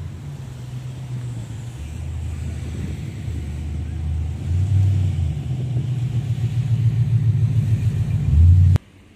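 A low rumble that grows louder over several seconds and cuts off abruptly near the end.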